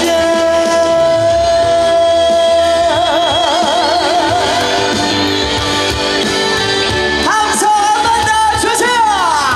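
Live trot music with singing. A long note is held steady for about three seconds and then sung with a wide vibrato, and sliding notes come near the end.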